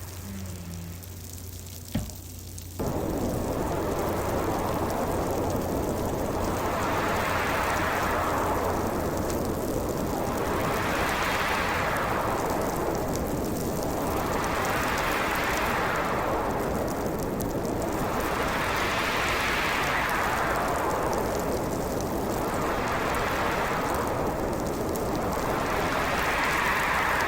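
Winter storm soundscape: a quieter stretch with a low hum and a single sharp click about two seconds in, then the noise jumps up suddenly into a loud, steady rush of wind and snow. The rush swells and fades in gusts every few seconds.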